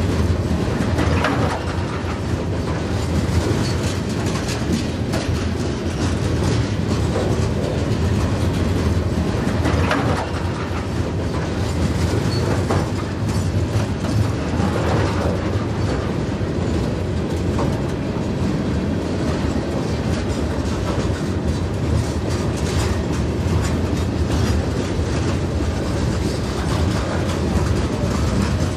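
Freight train of loaded rock hopper cars rolling past with a steady rumble, the wheels clicking over the rail joints.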